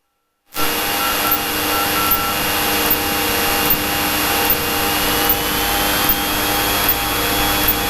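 Steady engine drone and airflow hiss of a Cessna light aircraft heard inside the cockpit. It cuts in abruptly about half a second in, after a moment of silence.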